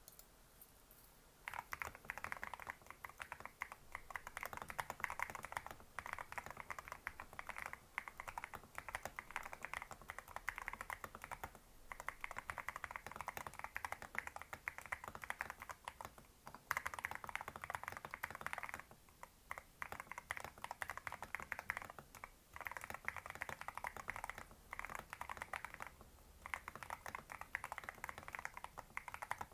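Fast typing on a 60% mechanical keyboard with Rose Panda tactile switches and MDA-profile keycaps: a dense, crisp clatter of keystrokes. It starts about a second and a half in and goes on with brief pauses between bursts.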